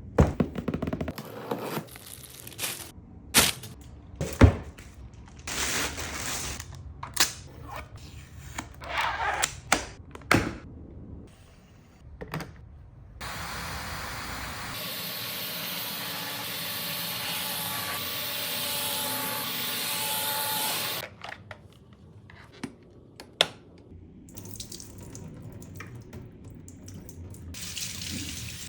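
Shark Steam Pick-Up steam mop: a run of clicks, spurts and short hisses, then a steady steam hiss lasting about six seconds from around the middle, followed again by scattered clicks and short hisses.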